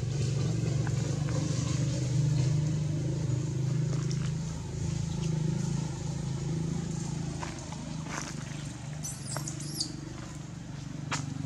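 A steady low engine drone from a motor vehicle, easing off after about seven seconds, with scattered light clicks. About nine seconds in there is a brief cluster of high squeaky calls.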